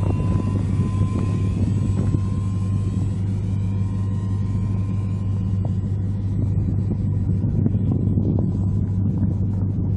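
A steady low rumble throughout. Over it, the thin high drone of an RC PC-6 Porter model plane's motor fades out about two seconds in as the plane flies off.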